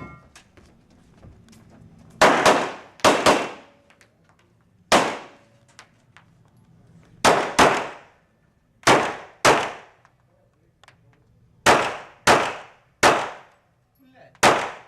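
Handgun shots in an IPSC course of fire: about eleven sharp shots, some as quick pairs under a second apart and others single, with one- to two-second gaps between groups, each with a short ringing tail.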